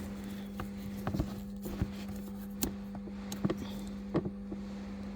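Light clicks and knocks of a plastic fuse or connector being pushed and worked by hand in a car, scattered irregularly over a steady low hum.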